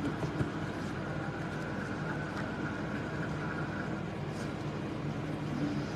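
Steady low background hum, with a faint click about half a second in.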